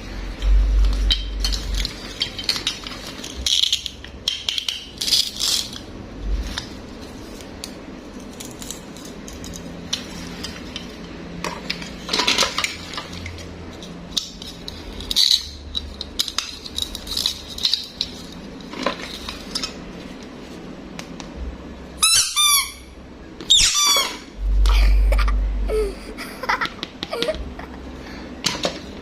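Small plastic toys being handled, with repeated scattered clicks, taps and clinks and a few low bumps. About 22 seconds in comes a short run of quick, falling squeaky chirps.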